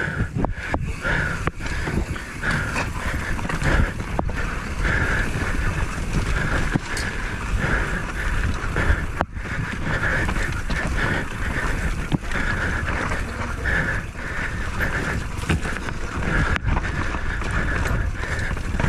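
Mountain bike descending a rough trail at speed: wind buffeting the microphone, a constant pulsing whir, and scattered knocks and rattles as the bike hits bumps.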